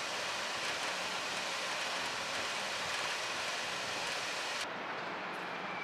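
Steady, even outdoor hiss with no distinct events, which cuts abruptly about four and a half seconds in to a quieter street background.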